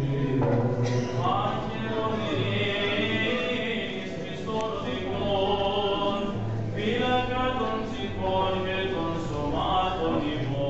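Male voices singing Byzantine chant at Orthodox vespers: a slow, ornamented melody over a low held drone note.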